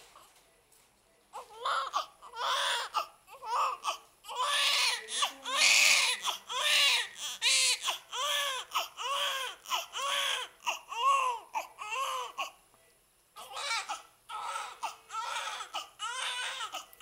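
Newborn baby crying: short wails in quick succession, each rising and falling in pitch. It starts about a second in and breaks off briefly near the end before starting again.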